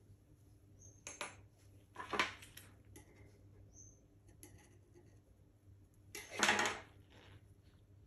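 Small hand tools being picked up and set down on a tabletop while a strip of edible paper is handled. There are three short clattering, rustling noises: about a second in, about two seconds in, and the loudest at about six and a half seconds.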